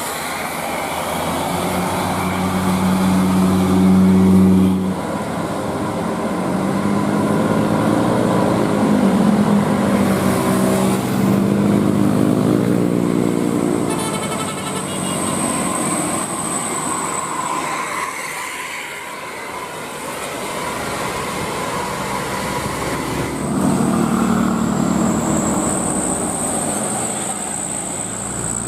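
Buses driving past with their engines running, the engine note rising and falling in pitch several times.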